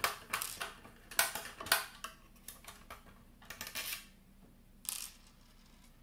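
Screwdriver working the small screws out of a Rockwell Collins TPR-720 transponder's metal case: a run of sharp metallic clicks and scrapes in the first two seconds, a longer scraping stretch a little past halfway, and a single clink about five seconds in.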